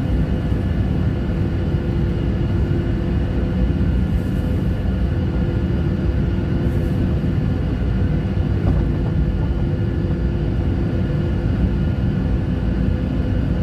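Steady cabin noise inside a Boeing 737 airliner taxiing before take-off: a low rumble from the engines at idle with faint steady whine tones above it.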